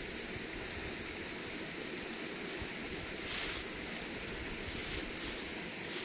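Shallow rocky creek running steadily, water rushing over stones, with one brief louder swish about three seconds in.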